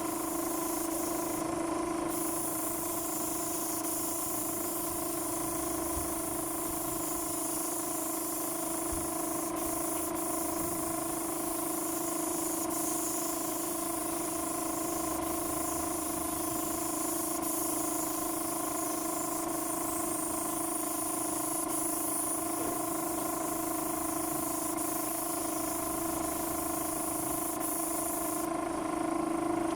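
Spray gun hissing steadily as it sprays sanding sealer or lacquer, over a steady machine hum.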